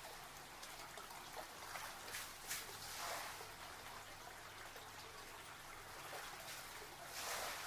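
Water trickling steadily, with louder swells of splashing about three seconds in and near the end.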